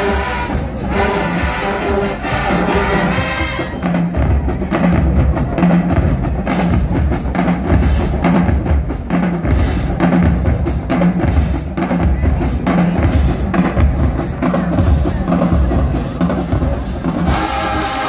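HBCU show-style marching band: the horns play for the first few seconds, then drop out and the drumline plays on alone, a cadence of heavy bass drum hits and snare strikes, until the horns come back in near the end.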